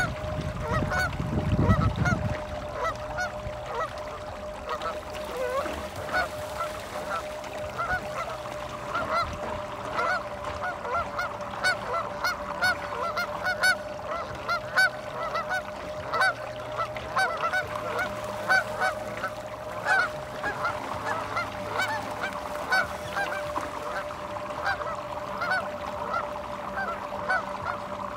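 A flock of geese honking, many short calls overlapping throughout, with a steady hum beneath them.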